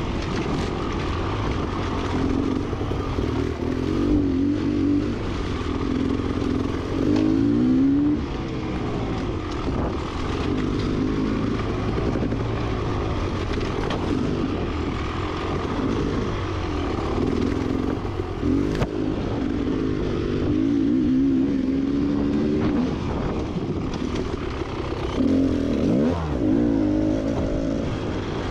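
Beta XTrainer 300 two-stroke dirt bike engine being ridden on a trail, its pitch rising and falling over and over as the throttle is worked. It drops and then revs up sharply near the end, with scattered knocks and rattles from the bike.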